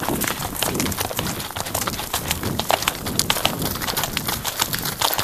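Horses galloping over dry stubble: a rapid, irregular run of hoof strikes from the ridden horse and others close alongside, heard from the rider's helmet.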